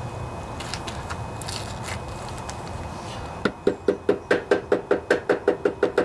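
Quick, even run of light taps, about six a second, starting about halfway through: a mallet tapping the new flywheel key down into the keyway of a Briggs & Stratton mower engine's crankshaft.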